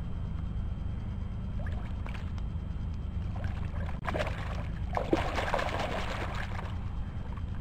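Hooked common carp thrashing at the surface of shallow water: a short splash about four seconds in, then a couple of seconds of heavier splashing. A steady low rumble runs underneath.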